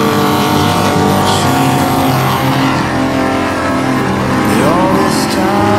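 Off-road racing buggy's engine running at high revs under hard load, its pitch rising about four and a half seconds in.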